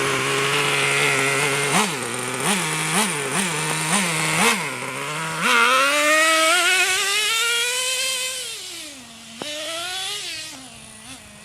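Traxxas T-Maxx 2.5 RC truck's small nitro two-stroke engine idling, blipped five times in quick succession, then revved up and held high for a few seconds before dropping back. A sharp click comes about nine seconds in, then one more short rev, and the engine grows quieter near the end.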